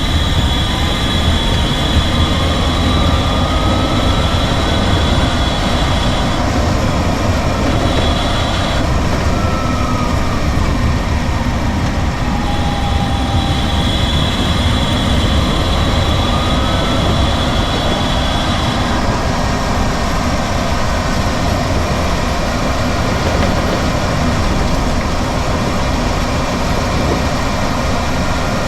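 Drivetrain of a DC electric VW conversion heard from behind the car while driving: steady road and wind rumble, with a faint whine that rises in pitch twice as the car speeds up, and a high steady tone that comes and goes. No grinding noise stands out.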